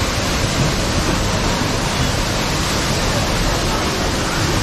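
Artificial rock waterfall pouring into a pool, a steady, even splashing of falling water.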